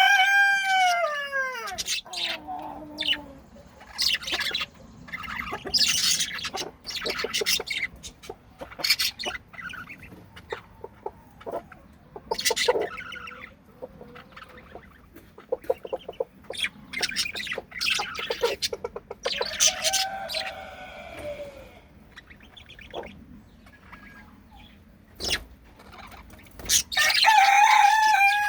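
Pet budgies chattering, with short chirps, clicks and rapid warbling throughout. Over this, a larger bird gives two long, lower crowing calls: one falls in pitch over about two seconds at the start, and one is held steady near the end.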